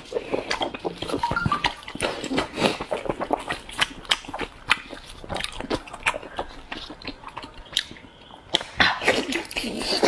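Close-miked eating sounds: a person chewing sauced meat with wet smacking and squelching. Gloved hands tear pieces apart with sticky pulling sounds. Irregular short clicks follow one another throughout.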